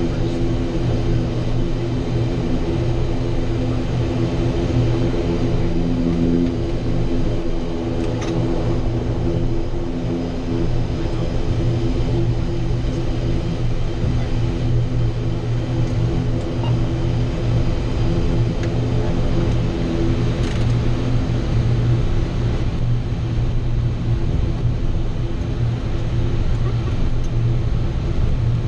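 Steady drone of an ATR 42's twin turboprop engines and propellers heard from inside the cockpit on final approach, a low hum with several steady tones under it. A couple of faint ticks sound about eight and twenty seconds in.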